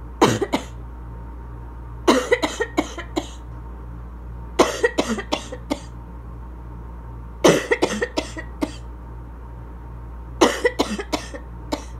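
A person's asthma cough: five coughing fits, each a quick run of several harsh coughs, coming every two and a half to three seconds.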